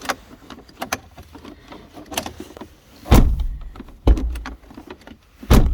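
Ligier microcar door handle and door being worked to test a freshly repaired handle thread: several light clicks, then three heavy thumps, the door latching shut, about one to one and a half seconds apart.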